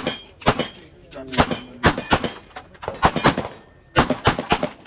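Rapid gunfire: about a dozen shots in quick, unevenly spaced strings, each with a brief echo.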